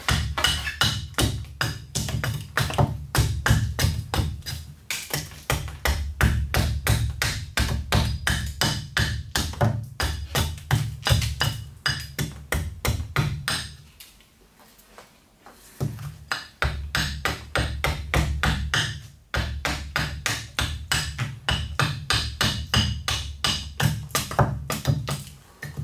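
Small carving axe chopping into a birch spoon blank held on a log chopping block: rapid, even blows of about three to four a second, each a sharp knock with a low thud from the block. The chopping stops for about two seconds midway, then resumes at the same pace.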